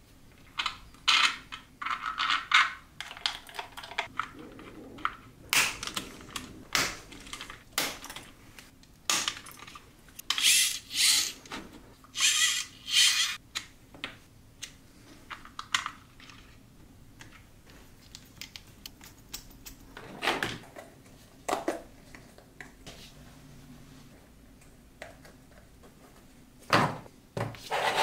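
Small 3D-printed plastic RC car parts being handled and fitted together by hand: irregular clicks, taps and short scrapes, busiest in the first half, sparse in the middle, with a few more near the end.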